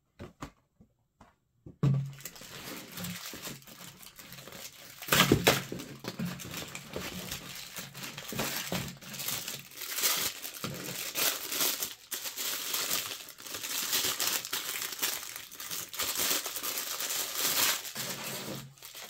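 Crumpled white paper wrapping crinkling and tearing as an action figure is unwrapped by hand. A few light clicks come first, then continuous crinkling, loudest about five seconds in.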